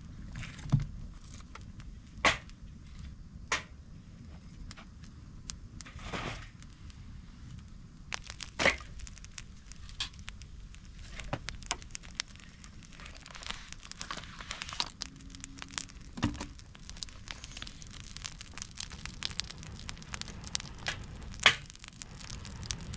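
Wood campfire crackling, with irregular sharp pops, a few of them much louder than the rest.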